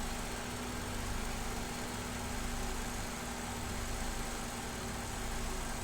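2015 Vauxhall Corsa E's 1.4 Ecotec petrol engine idling steadily with its MAF sensor unplugged, a steady hum over the engine note. It still has a slight misfire ("a wee miss"), with the fuel system reading lean.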